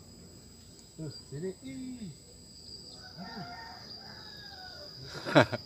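Insects droning steadily at two high pitches, the higher one dropping out about halfway through. A faint wavering call comes in around the middle, and a brief loud sweeping sound is heard near the end.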